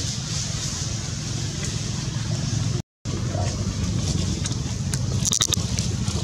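Steady low outdoor rumble with hiss, broken by a brief gap in the sound about three seconds in and a few sharp clicks a couple of seconds later.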